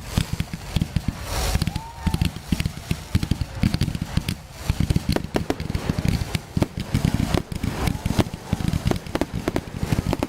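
Fireworks going off: a dense, unbroken run of sharp bangs and crackling pops, many to the second.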